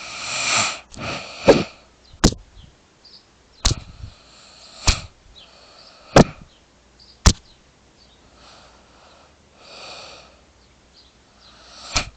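A woman snoring in her sleep: slow, breathy snores every few seconds, the first the loudest. Between them come sharp, loud clicks about once a second through the first seven seconds and once more near the end; these are the loudest sounds.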